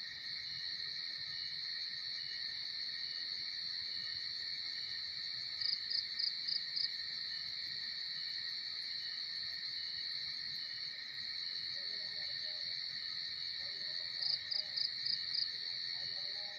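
Steady high-pitched chorus of crickets trilling, with a short run of about five louder chirps twice, near the middle and near the end.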